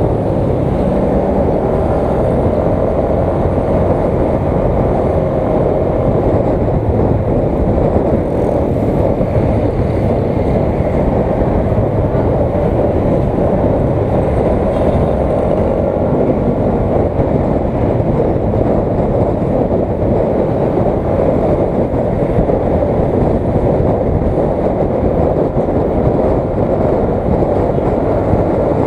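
Motorcycle under way, heard from a camera mounted on the bike: a steady, loud rumble of engine, wind and road noise.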